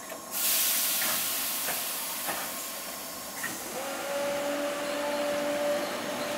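Merseyrail Class 508 electric multiple unit starting away: a sudden loud hiss of air from its brakes releasing, fading over about three seconds, then a motor whine that rises in pitch and holds steady as the train begins to move.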